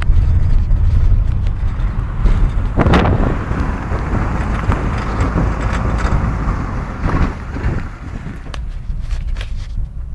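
Citroën Saxo VTR on the move: a steady low rumble of engine and road, with sharp clicks in the last couple of seconds. It is the strange noise that the owner suspects comes from the rear wheel or suspension.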